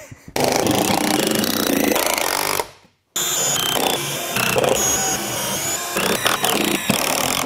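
A power tool running steadily, in two stretches split by a sudden break about three seconds in.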